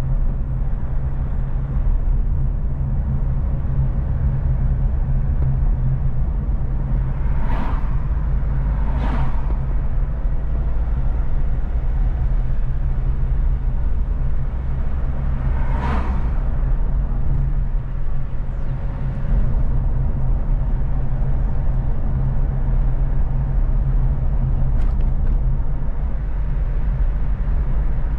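Steady low rumble of a car driving at highway speed, with road noise and three brief whooshes about 7, 9 and 16 seconds in.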